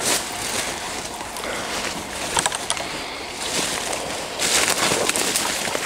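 Footsteps and brushing through forest undergrowth: irregular rustling of leaf litter and plants, with a couple of sharp twig cracks about two and a half seconds in and louder rustling near the end.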